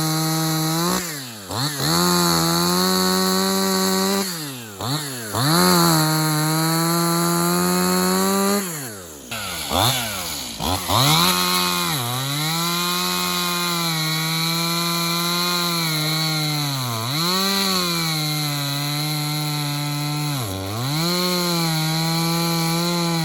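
STIHL MS211 two-stroke chainsaw running at high throttle, cutting wood. The engine pitch sags and recovers several times, and falls briefly toward idle about nine seconds in.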